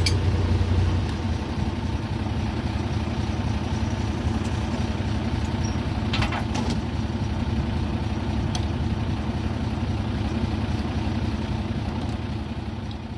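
Excavator diesel engine running steadily, a little louder in the first second and then settling, with a brief clatter about six seconds in.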